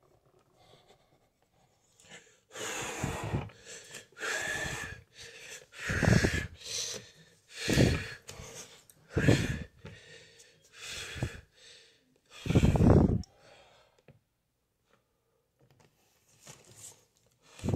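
A man's hard, forceful breathing close to the microphone, puffs of breath coming about every one and a half seconds from the exertion of exercise repetitions. The puffs stop for a couple of seconds near the end, then start again.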